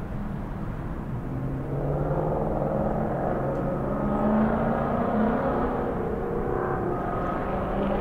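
Motorcycle engine running, getting louder about two seconds in, its note rising and falling a little as it revs.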